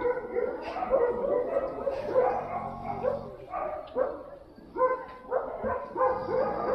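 Dogs barking over and over, about two short barks a second.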